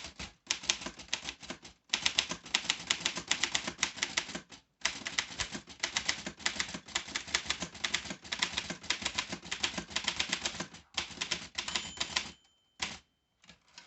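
Aztec 600 portable manual typewriter (a rebranded Rheinmetall) being typed on in quick runs of key strikes, with brief pauses between runs. A short ringing tone sounds near the end.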